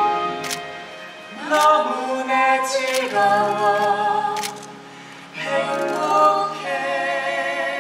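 Singing from a stage musical, performed live: sustained sung phrases with gliding pitches, easing off briefly about a second in and again about five seconds in.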